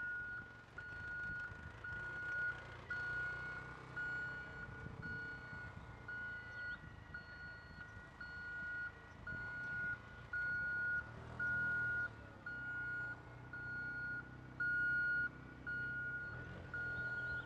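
A vehicle's electronic warning beeper sounding a steady high tone on and off about twice a second, like a reversing alarm, over the low running of the vehicle.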